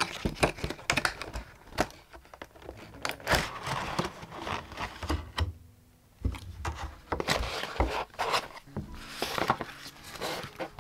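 Product packaging being opened by hand: crinkling and tearing with scattered sharp clicks and scrapes, with a brief lull a little past halfway.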